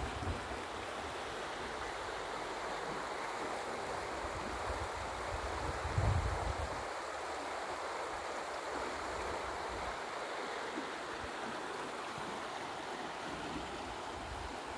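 Shallow river water running over a stony bed, a steady rushing and rippling. A brief low rumble on the microphone about six seconds in.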